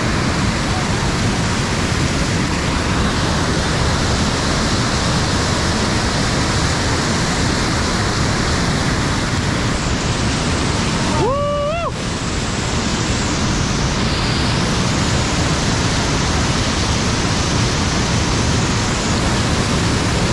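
Waterfall water rushing and splashing in a loud, steady roar. About halfway through, the rush briefly drops out while a short tone rises and then holds for under a second.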